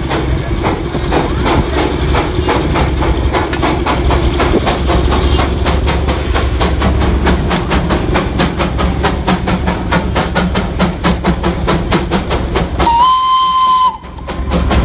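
Darjeeling Himalayan Railway B-class steam locomotive 806B working hard, its exhaust beating in rapid, even chuffs. Near the end the engine gives one steady whistle blast of about a second.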